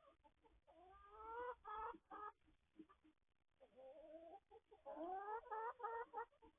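Hens calling in the coop: drawn-out clucks whose notes rise in pitch, in two bouts, the second about halfway through.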